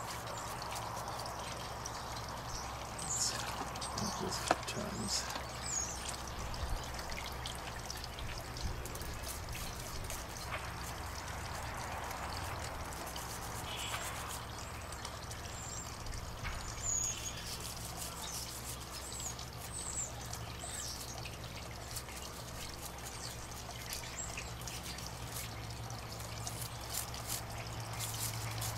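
Toothbrush scrubbing a brass cuckoo clock movement in a bowl of clock-cleaning solution: liquid sloshing, trickling and dripping as the works are dipped and brushed, with a steady low hum underneath and a few faint high chirps.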